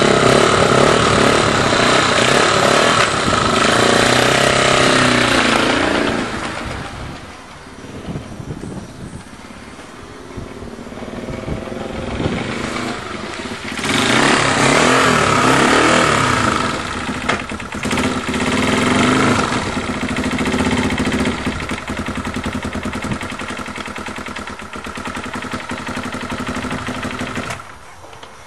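Honda XL250's single-cylinder four-stroke engine running and revving on its first run after a timing-chain replacement. It fades as the bike rides away, comes back loud as it returns, and the engine stops near the end.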